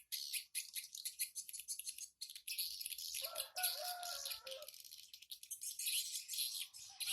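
Swiftlets twittering in a dense, fast, high-pitched chitter with no pauses. A lower, longer fowl call, like a chicken or rooster, cuts in about three seconds in and again near the end.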